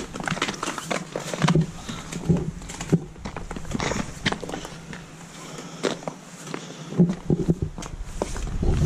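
Footsteps of a hiker stepping carefully down an icy, slushy trail: a series of uneven crunches, with a louder low rumble near the end.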